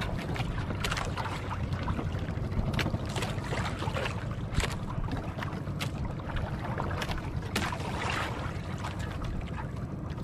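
A small fishing boat's engine running steadily, with water splashing against the hull at irregular moments.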